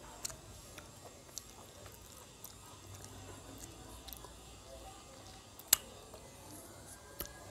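Close-up eating sounds: sparse wet mouth clicks and lip smacks as a lime wedge is bitten and sucked, after fingers wipe curry from a steel plate. One sharp smack stands out a little before the end.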